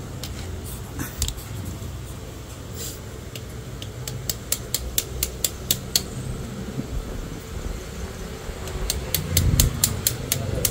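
Runs of sharp, evenly spaced clicking, about four clicks a second, over a steady low hum. One run comes about four seconds in, and another starts near the end.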